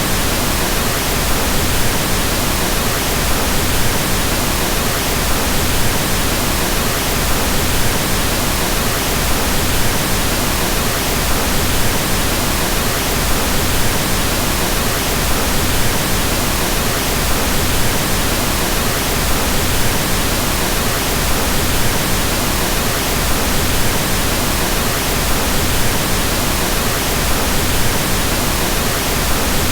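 Steady pink noise: an even, unbroken hiss with more weight in the low end than white noise, without change or events.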